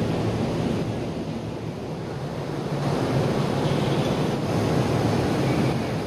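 Steady rush of wind on the microphone on an open ferry deck, with sea noise and a low steady hum from the ship underneath.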